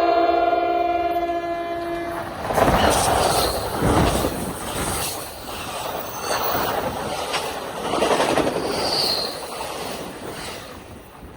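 NJ Transit train's horn sounding a held multi-note chord that cuts off about two seconds in. The train then passes at speed: wheels clattering over the rail joints and a loud rush that swells and fades several times as the cars go by, easing off near the end.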